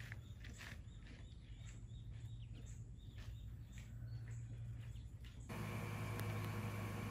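Faint birds chirping outdoors over a low steady hum. About five and a half seconds in, the sound cuts to a louder steady electrical hum and whine with a few faint ticks.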